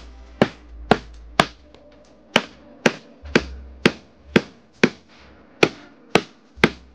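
Claw hammer striking a wooden board in a steady run of sharp knocks, about two a second. The blows press the board down onto pin nails beneath it so they leave imprints that mark the line for cutting the station mould.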